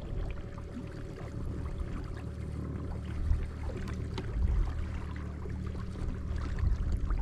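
Water lapping and splashing against a kayak hull as it moves along, with a steady low rumble and a faint steady hum underneath.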